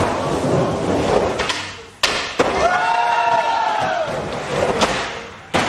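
Skateboard wheels rolling on a wooden mini ramp, with a few sharp knocks and thuds of the board on the wood, and people's voices calling out over it.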